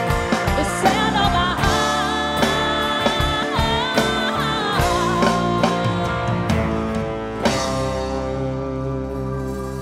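Live band music playing the song's closing bars, with a wavering wordless vocal line over guitar and drums. A final chord is struck about three-quarters of the way through and rings out, slowly fading.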